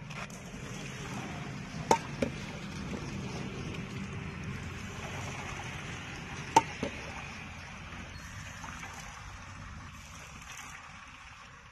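Boiling seeraga samba rice and its water poured from a metal saucepan into a cloth-lined strainer, the water splashing and draining through. Twice, about two seconds and six and a half seconds in, a sharp metal knock with a smaller one just after.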